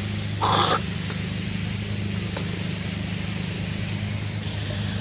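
A steady low engine hum, like a vehicle idling close by. About half a second in there is a brief, loud rush of noise.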